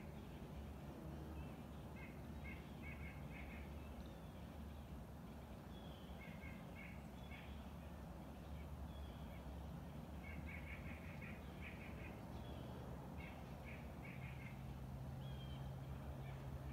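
Birds calling faintly in short runs of quick repeated notes every few seconds, over a low steady rumble.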